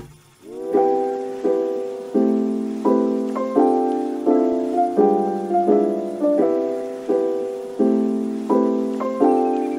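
Background music: a piano playing soft chords, a new chord struck about every three-quarters of a second and left to fade.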